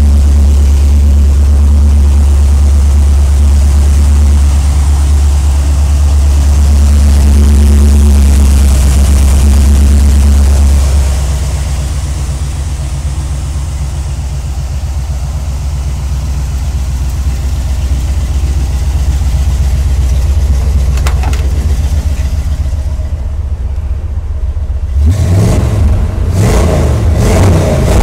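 A Chevy 350 small-block V8 with throttle-body injection idles steadily, loud at first and then quieter. Near the end the engine note rises and falls a few times, as when the engine is revved.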